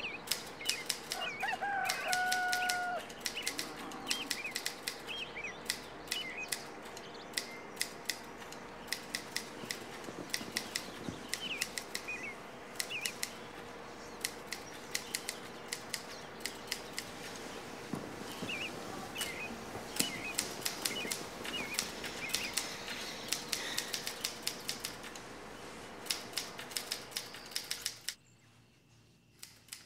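Manual typewriter keys clacking, several strikes a second, almost the whole way through, with small birds chirping and a rooster crowing about two seconds in. The clacking and birdsong drop away sharply near the end.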